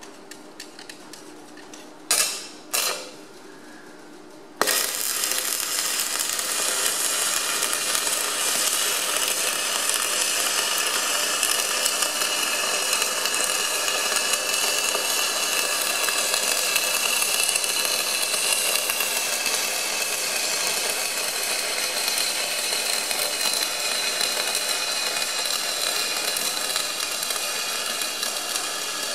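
Welder's arc striking twice briefly, then running continuously from about four and a half seconds in, as a weld bead is run down the inside of a tractor engine's cylinder liner so that the bead will shrink the liner loose as it cools.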